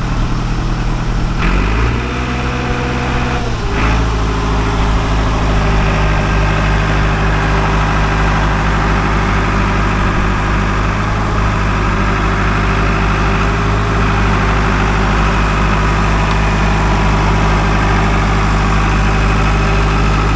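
International 100E crawler loader's diesel engine running under the operator's throttle. It revs up briefly about two seconds in, drops back, and then runs steadily with a deep, even rumble.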